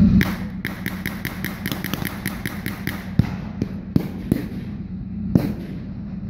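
Blank gunfire in a mock battle: a rapid string of shots, several a second, for about two seconds, then scattered single shots. Under it runs a low engine rumble from the tanks, loudest at the start.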